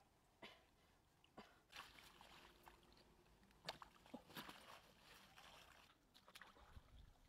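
Faint, scattered splashes and rustles: river water sloshing around a person wading, and leaves rustling as a caught catfish is pushed into a leaf-lined wicker basket. The loudest strokes come a little before and after the middle.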